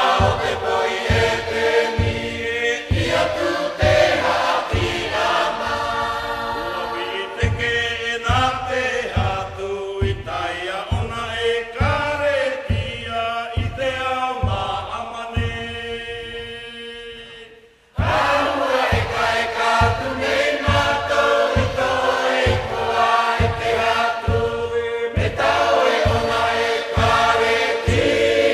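Background music: voices singing together over a steady beat of about two a second. About two-thirds of the way through, the song fades out and another choral song starts at once.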